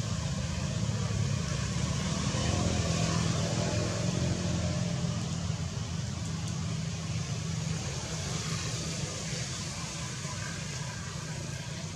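Steady low rumble of passing road traffic, louder a couple of seconds in and fading toward the end.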